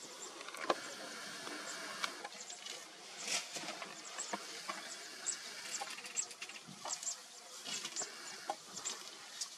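African elephants grazing: irregular snapping, tearing and rustling of grass as they pull it up with their trunks. Short high chirps sound in the background.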